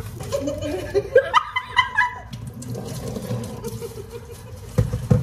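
Several women laughing, in loud bursts about one to two seconds in, then two sharp knocks near the end.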